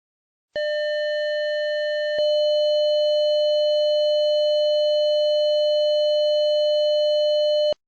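Transistor security alarm circuit sounding a steady, single-pitch electronic alarm tone. It switches on suddenly about half a second in, gets louder about two seconds in, and cuts off abruptly near the end.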